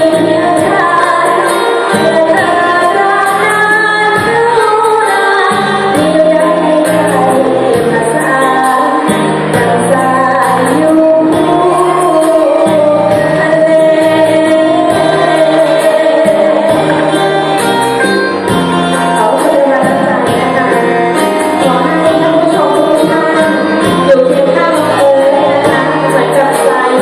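A singer sings a melody over band accompaniment with a steady beat: a song from a likay show.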